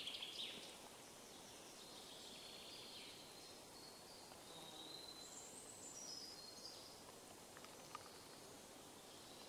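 Quiet forest ambience with small birds singing: a high chirping phrase fades out in the first half second, then thin, high chirps and whistles come and go through the middle.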